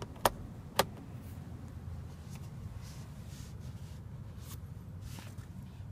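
Two sharp clicks of the rear dome light switch being pressed, about half a second apart, followed by faint rustling of a hand against the leather seat-back pocket over a low steady hum.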